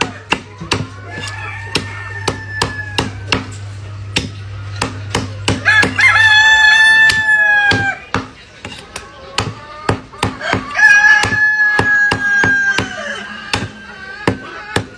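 Cleaver chopping raw chicken on a wooden chopping block, steady sharp chops about three a second. A rooster crows twice over it, long drawn-out calls about six and eleven seconds in, with a fainter call near the start.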